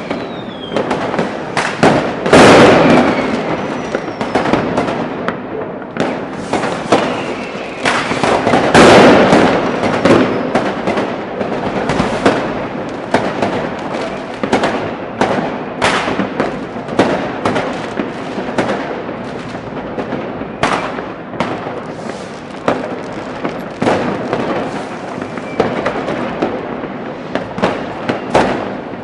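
Mass New Year's Eve street fireworks: a dense, continuous barrage of firecracker cracks and rocket bangs, with heavier booms about two and a half and nine seconds in and a few whistling rockets rising early on.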